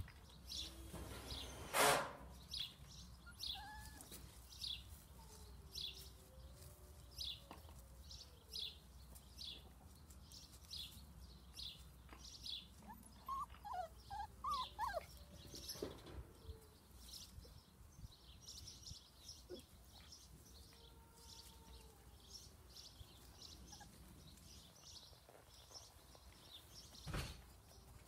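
Four-and-a-half-week-old puppies giving faint high whimpers and squeaks while nursing and tussling, with a bird chirping about once a second in the background. A loud short rustle or bump comes about two seconds in.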